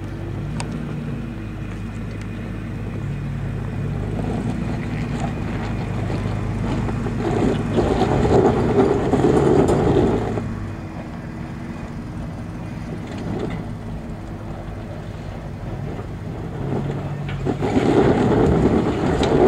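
Lifted Nissan Xterra's 4.0 V6 engine pulling at low revs up a steep rocky climb. It gets louder in two surges, about eight seconds in and again near the end, as the tyres spin and scrabble on loose rock.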